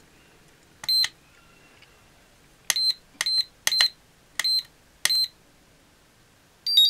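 An iMAX B6 balance charger's buzzer gives six short, high beeps as its front-panel buttons are pressed to start charging a lithium-ion cell. Near the end comes a quick chirp on a slightly different pitch.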